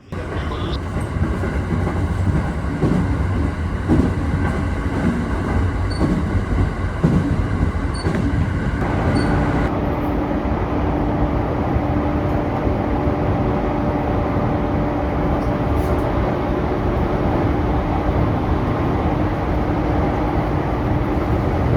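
JR East E231-series electric train running, heard from inside the car: a steady rumble of wheels on the track with motor hum. About ten seconds in, the higher whine drops away and a lower steady hum takes over.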